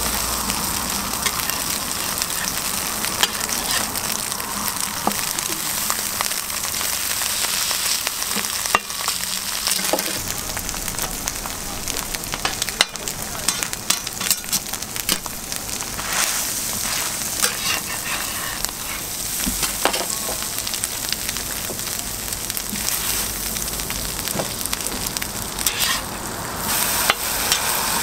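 Egg and chopped ham sizzling on a flat steel griddle, a steady hiss of frying, with frequent short clicks and scrapes of a metal spatula against the griddle.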